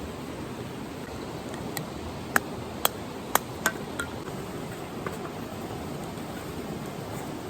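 Steady rush of river water with a quick run of about six sharp metallic clinks in the middle, like utensils or cookware knocking together.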